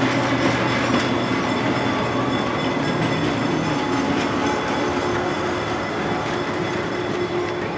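East Broad Top Railroad motorcar M-7 running on the track: a steady engine drone with wheel noise and faint clicks from the rails, easing off slightly near the end.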